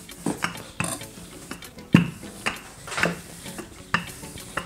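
Wooden rolling pin knocking and rolling on a pastry board as dough is rolled out: about seven sharp knocks at an uneven pace, the loudest about two seconds in.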